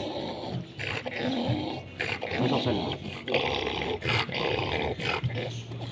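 American Bully dogs vocalising in short, repeated bursts during mating, with the stud mounted on the female.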